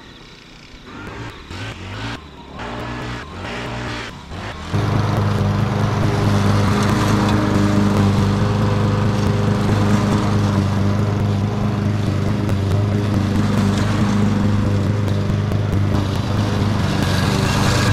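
Petrol rotary push lawn mower engine running steadily while cutting long grass, coming in loud and sudden about five seconds in. Quieter, irregular sounds come before it.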